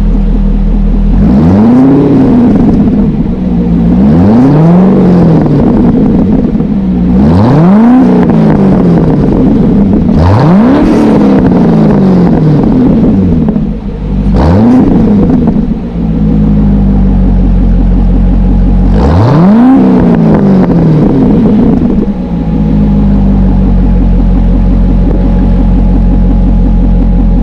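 C6 Corvette's LS V8 through a Borla Stinger cat-back exhaust with X-pipe, idling and then blipped six times. Each rev rises sharply and falls straight back to idle, and the engine settles into a steady idle for the last few seconds.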